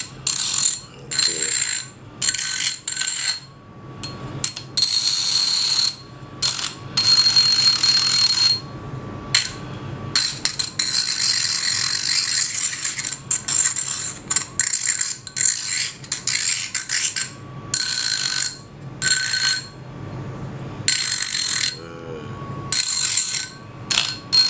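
Small cordless rotary tool spinning a grinding bit against the rusty inside of a small DC motor's steel housing, scouring off rust, with a high whine. It goes in repeated bursts as the bit touches and lifts, some brief and some a few seconds long.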